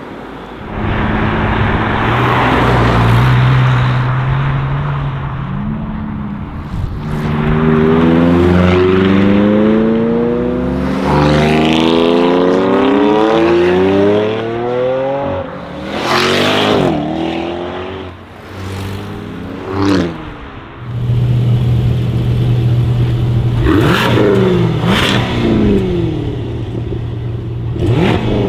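Jaguar F-Type's supercharged 5.0-litre V8 running loud: a long acceleration with the engine note climbing steadily, then several sharp rev blips that each rise and fall away over a steady low idle.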